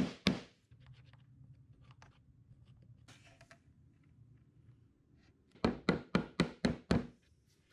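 Mallet tapping Domino tenons into glued mortises in oak cabinet panels: a couple of quick knocks at the very start, a quiet stretch, then a run of about six sharp knocks, about three a second, near the end.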